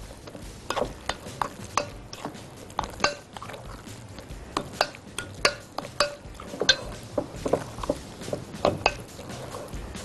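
Metal spoon stirring a thick mashed-potato mixture in a glass bowl, clinking against the glass many times at an irregular pace.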